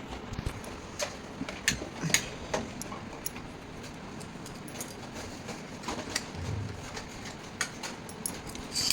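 Scattered light clicks and knocks of handling on an air conditioner being serviced, over a low steady background.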